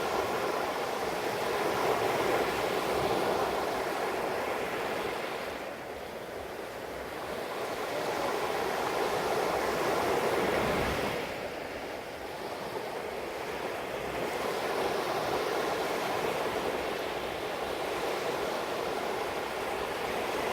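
Sea waves washing in, the rushing noise swelling and fading in slow surges every five or six seconds.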